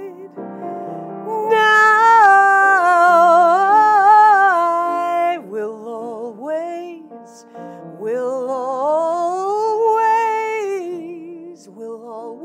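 A woman singing a slow, tender song with vibrato, holding two long phrases, the second gliding up in pitch, to her own grand piano accompaniment.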